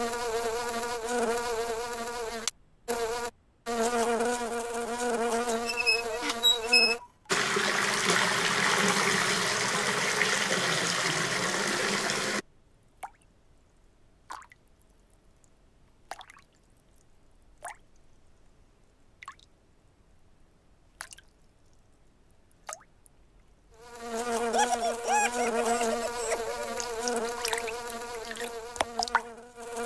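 A housefly's buzzing, wavering in pitch and cutting out briefly a couple of times, then a rush of running water for about five seconds. After that it is quiet but for a few faint short ticks, and the buzzing starts again near the end.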